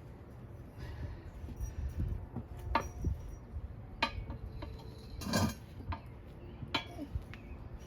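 Steel pry bars clinking and knocking against metal while a tire is levered onto a wheel by hand: a handful of separate metallic clinks, the loudest about five seconds in.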